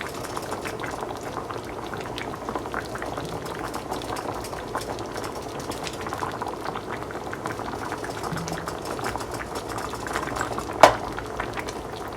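Mushroom-and-onion beef gravy bubbling at a light boil around hamburger patties in a pan, a steady crackle of small popping bubbles. A single sharp knock sounds near the end.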